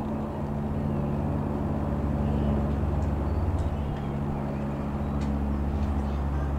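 Single piston engine and propeller of a Robin R3000/140 light aircraft, a steady drone as the plane passes overhead.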